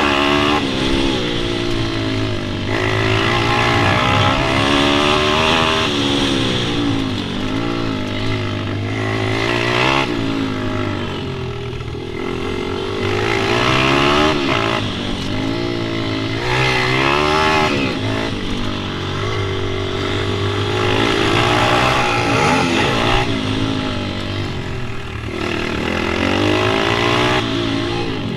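Pit bike engine running hard, its pitch rising and falling again and again as it revs up and eases off every few seconds.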